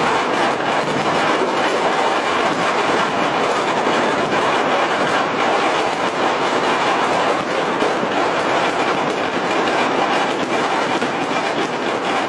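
Dense, unbroken crackling of countless firecrackers and fireworks going off all over a city at once, the many pops merging into a steady din.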